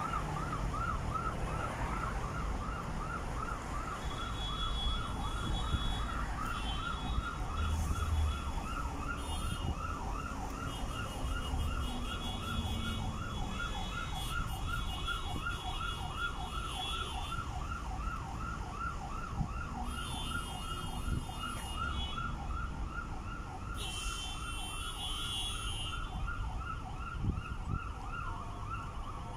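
An electronic siren yelping: a high wailing tone sweeping up and down quickly, about three or four times a second, holding steady and unbroken. Low traffic rumble underneath.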